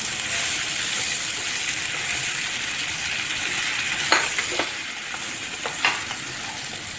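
Chopped vegetables sizzling as they sauté in hot oil in a wide pan, stirred with a wooden spatula. The spatula knocks against the pan a few times in the second half.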